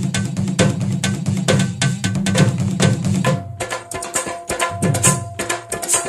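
Percussion-heavy dance music: fast, even drum strokes over a heavy low bass. The bass drops out about three and a half seconds in, leaving sparser drum hits with held instrument notes.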